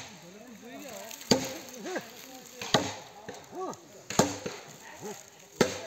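An axe chopping into a felled log with two-handed overhead swings: four sharp strikes, about one every second and a half. Faint rising-and-falling calls are heard between the strokes.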